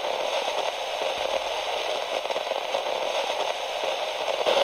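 Steady crackling static hiss, like a detuned radio, played as a glitch effect under an end card.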